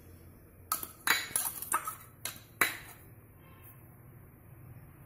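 A white spoon knocking against a small ceramic bowl as chopped coriander leaves are tapped out into a larger ceramic bowl. About seven sharp, ringing clinks come in quick succession, starting under a second in and stopping before the third second.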